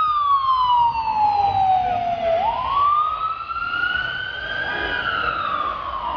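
Ambulance siren in a slow wail: its pitch falls for about two seconds, climbs back up, and starts falling again near the end.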